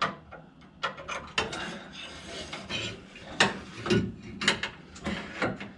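Small metal parts scraping and clicking as a part is slid and worked into place by hand on a car's wiper motor assembly. There is a run of sharp knocks and clicks over the scraping, loudest around the middle.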